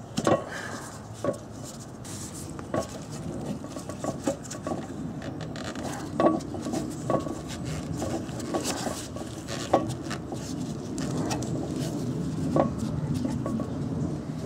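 Short metallic clinks and knocks, a dozen or so, some ringing briefly: a new stainless-steel muffler and its pipe being handled while rubber exhaust-hanger insulators are fitted onto its hanger rods.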